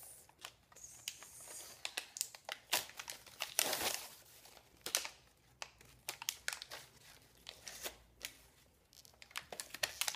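Toy packaging being torn open and crinkled by hand: irregular sharp crackles, with a louder ripping stretch about three and a half seconds in.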